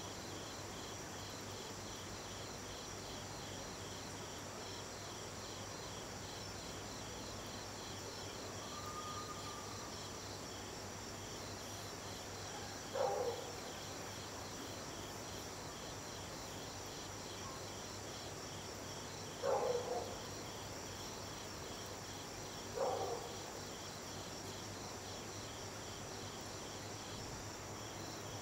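Night insects chirping steadily in a fast, even rhythm. Three short calls, each falling in pitch, stand out above them, the middle one doubled.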